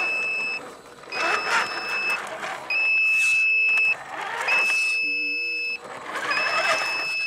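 A high electronic beep repeating about every 1.8 seconds, each beep held for over a second with a short gap, over the splashing and whir of an RC off-road car driving through a shallow muddy creek.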